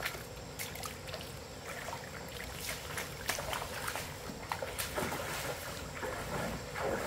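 Irregular splashing and sloshing of legs wading through shallow stream water, with a faint steady water noise underneath.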